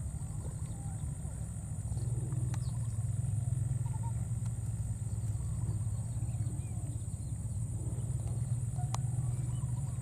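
Outdoor ambience: a steady low rumble that grows a little louder about two seconds in, under a steady high-pitched insect drone, with a few faint short chirps and two sharp clicks.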